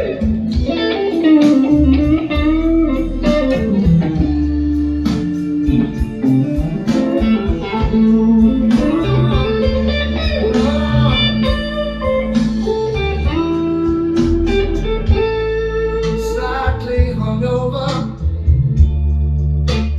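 Blues music with bending electric guitar lines over a strong, steady bass, played back through a Marantz Cinema 70s receiver, Monitor Audio Bronze speakers and an SVS SB-1000 Pro subwoofer.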